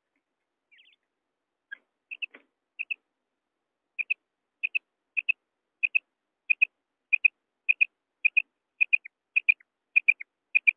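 Common quail calling: short, high double notes, a few scattered and soft at first, then settling after about four seconds into a steady rhythm of one pair a little more often than every half second.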